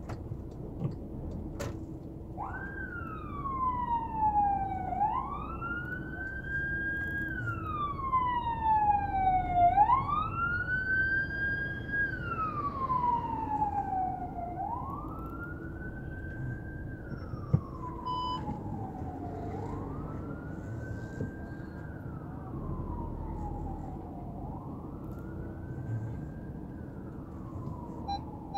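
Emergency vehicle siren wailing, its pitch rising and falling slowly about every five seconds, heard from inside a car in traffic. It starts a couple of seconds in, is loudest early on and grows fainter as it goes.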